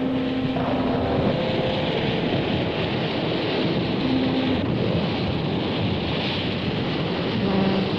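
Electronic noise-music soundtrack: a steady, dense rushing wash like surf or wind. A few held notes sound over it at the start, briefly about halfway, and again near the end.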